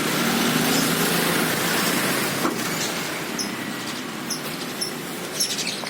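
A passing road vehicle whose noise fades slowly away, with a few short high bird chirps in the second half.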